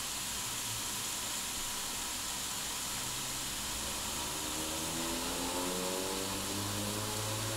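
Pork steaks sizzling between the plates of a Tefal Optigril Plus contact grill: a steady hiss. A faint pitched sound comes in about halfway through.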